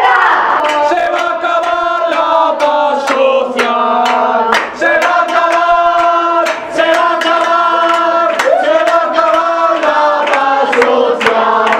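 A group of protesters singing a chant in unison, with long held notes, while sharp beats keep time throughout.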